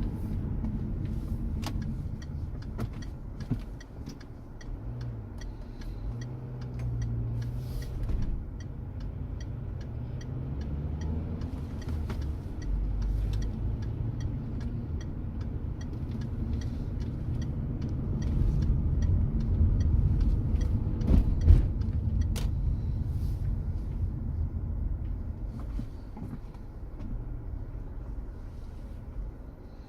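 Car engine and tyre rumble heard from inside the cabin while driving, with faint regular ticks over the first part and one sharp knock about two-thirds of the way through.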